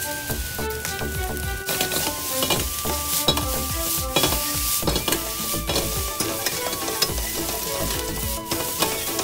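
Fried rice sizzling in a frying pan over a gas flame while it is tossed and stirred with a metal spatula, with frequent sharp scrapes and knocks of the spatula against the pan.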